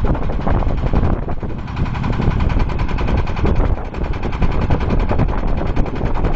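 Diesel-powered water well drilling rig running: a loud, rapid, continuous clatter with a dip in level about 4 seconds in.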